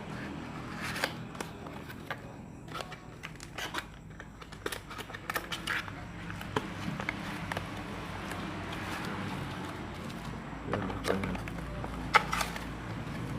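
An LED video light's packaging being opened and handled by hand: scattered crackles, rustles and clicks of box and wrapping, over a steady low background hum.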